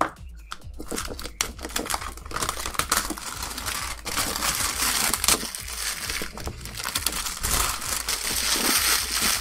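Packaging crinkling and rustling as it is handled and opened, with many small sharp crackles throughout.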